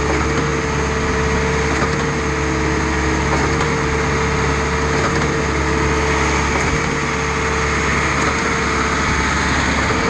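Reed A40 concrete trailer pump running steadily, its engine and hydraulics giving a constant hum with a steady mid-pitched whine.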